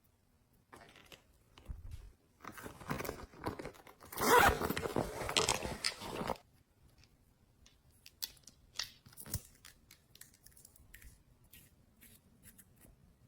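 Slime being worked by hand: a run of crackling, sticky noise that is loudest a little past the middle and stops suddenly, followed by scattered small clicks and pops.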